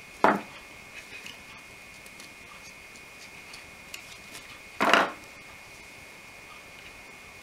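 Handling noise from small parts and tools on a workbench: two short knocks, one just after the start and one about five seconds in, with faint clicks between them, over a faint steady high whine.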